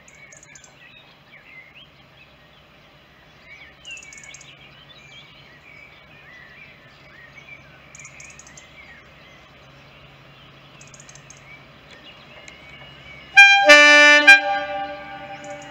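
Birds singing over a faint low drone from an approaching Class 52 'Western' diesel-hydraulic locomotive. About 13 seconds in, the locomotive sounds its two-tone horn loudly: a brief higher note, then a lower one held for about a second, fading out.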